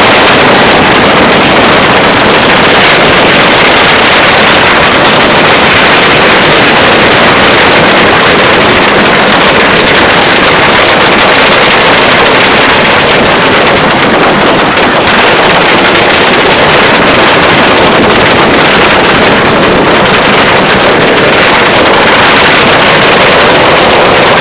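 Long strings of firecrackers going off without a break: a dense, continuous crackle, loud enough to nearly overload the recording.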